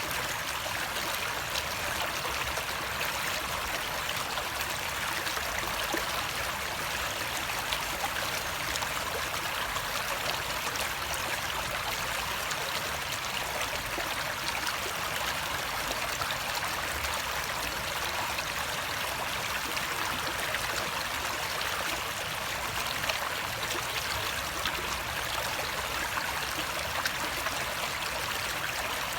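Running water flowing steadily, an even rushing sound with fine scattered splashes and no pauses.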